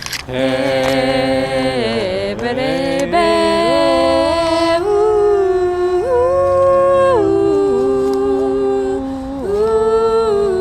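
Voices singing wordless, long held notes together, a cappella, moving in steps from one pitch to the next.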